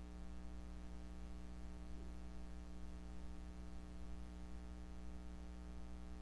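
Steady electrical mains hum with faint hiss in the recording, with only a faint short sound about two seconds in.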